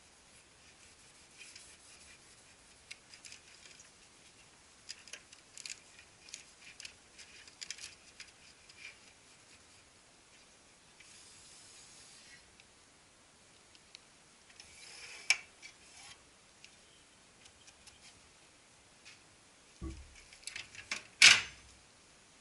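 Hands working on the plastic and metal parts of a copier's transfer unit, with scattered small clicks and rubbing, then a few louder knocks near the end.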